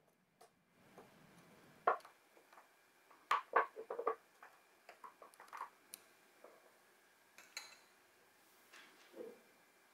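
Metal parts of a small model airplane engine clicking and clinking as they are handled and fitted together: a single clink about two seconds in, a quick cluster of clinks a second later, then lighter taps.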